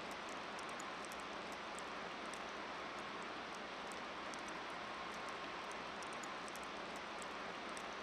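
Steady outdoor background noise: an even hiss with many faint, short, high-pitched ticks scattered through it.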